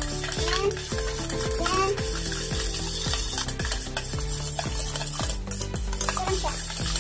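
Chopsticks stirring and tossing chopped green onion leaves in a stainless steel bowl, over background music with a steady beat.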